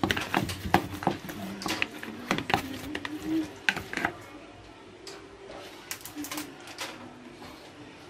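Metal spoon and chopsticks clicking and scraping against a plastic bowl as raw chicken drumsticks are stirred in seasoned flour: a quick, irregular run of taps that thins out after about four seconds.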